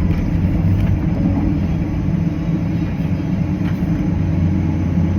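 Cat 325CL excavator's diesel engine running steadily, heard from the operator's cab, with a few faint knocks over the low drone.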